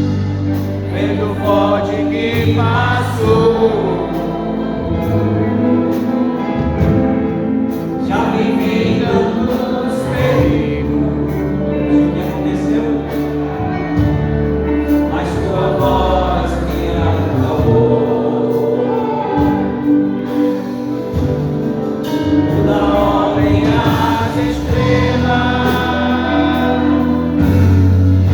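Portuguese gospel song sung by a group of voices over a band, with sustained bass notes underneath.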